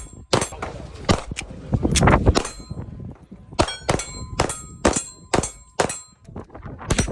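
Shots fired in an uneven string, with steel targets clanging and ringing on the hits, about a dozen strikes in seven seconds.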